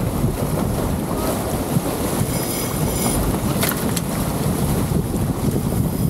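Wind buffeting the microphone over the rush of water along the hull of a sailboat moving through choppy sea. A brief sharp click about three and a half seconds in.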